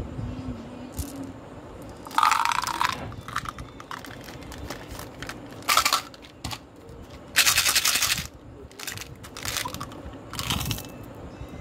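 Small candy-coated chocolate beads (Gems) rattling and clattering against hard plastic as they are poured and shaken in small plastic candy bottles. The sound comes in four or five short bursts, the longest lasting nearly a second about two-thirds of the way in.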